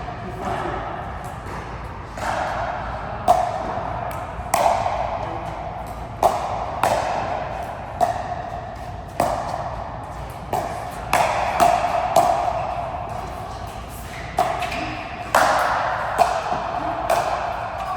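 A racket-sport rally: a ball struck back and forth in repeated sharp hits, each with a short ringing tail, about one hit a second and sometimes two or three in quick succession.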